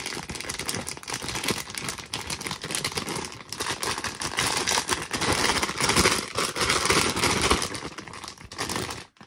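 A plastic grain spawn bag of colonized popcorn kernels being shaken by hand in a break and shake: crinkling plastic with the hard kernels rattling against each other as the mycelium-bound clumps are broken apart. It grows louder in the second half and stops just before the end.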